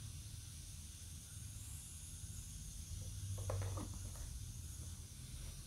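Salt shaker shaken over raw ground meat: a short cluster of quick rattling taps about three and a half seconds in, over a steady background hiss and low hum.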